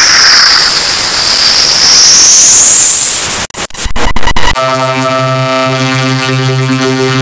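Heavily distorted effects-edit audio: a loud wash of noise with a whistle that swoops down and back up, broken by a few abrupt glitchy cut-outs about three and a half seconds in, then a steady buzzy synthesizer-like drone.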